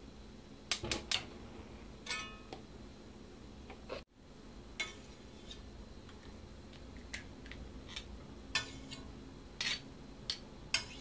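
Scattered clicks and clinks of a utensil against a jar of solid coconut oil and a cast iron skillet as the oil is scooped into the pan, one or two knocks ringing briefly.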